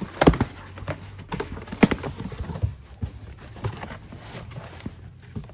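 Irregular knocks and clatter of household items and boxes being handled and shifted, with a couple of sharper knocks in the first two seconds.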